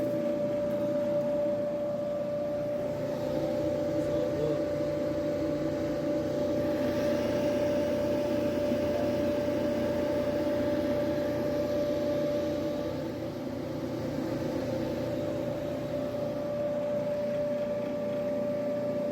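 Hotpoint clothes dryer running on a test with its door switch jumpered: motor, drum and blower fan hum steadily with a constant whine. It stays running, a sign that the clogged blower fan, now cleared, was what kept it from staying on.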